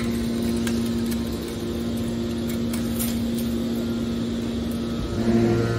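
Hydraulic scrap metal baler's motor and pump running with a steady hum. A deeper hum joins about five seconds in.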